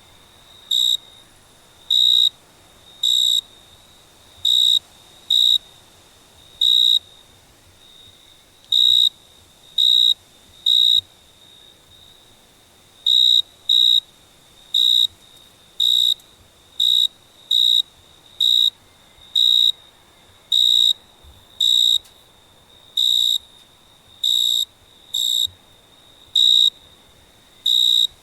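Cricket chirping: short, high-pitched chirps repeating at uneven intervals of roughly half a second to two seconds, with a faint steady high trill between them.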